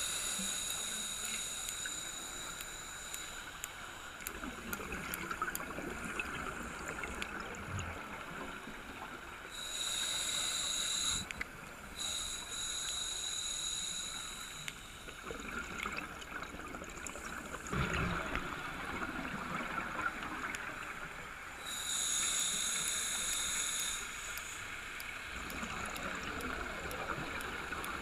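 Scuba regulator breathing underwater: three slow inhalations, each a hissing whistle lasting a few seconds, with exhaled bubbles gurgling and crackling between them.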